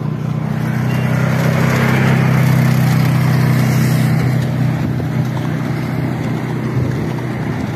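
Quad bike (ATV) engine running as the vehicle passes close on the road and moves off. It grows louder to a peak about two to three seconds in, then slowly fades.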